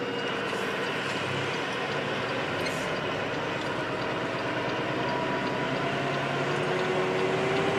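Tractor-trailer's diesel engine and road noise heard from inside the cab, running steadily as the truck rolls along the highway.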